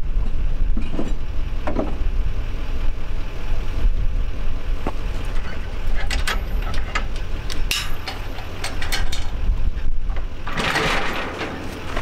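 Metal clicks and clanks of a pickup's trailer hitch and coupler being worked by hand, mostly in the middle, over a steady low rumble.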